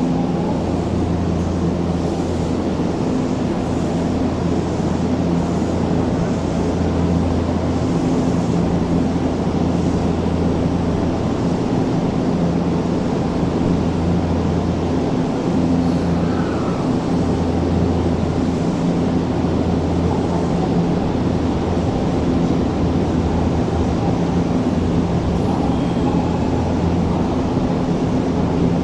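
Odakyu 8000 series electric train standing at the platform, its onboard equipment giving a steady low hum with a continuous background rush. The deepest part of the hum fades and returns a few times.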